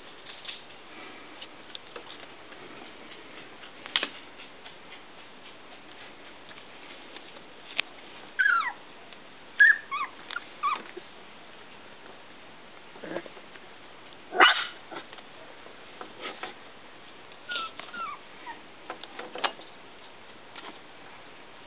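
Three-week-old Icelandic sheepdog puppies whimpering in short, high, mostly falling squeaks, bunched around the middle and again near the end, with a few sharp knocks in between.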